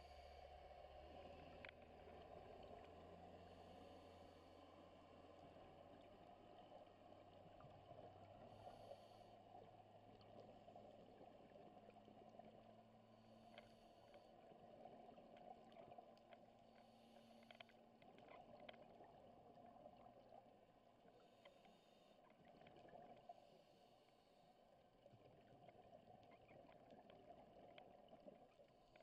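Near silence underwater: a faint steady hiss, with soft scuba regulator breaths returning every four to five seconds and a few faint clicks.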